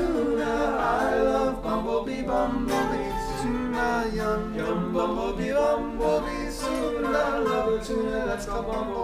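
Several voices singing together in harmony.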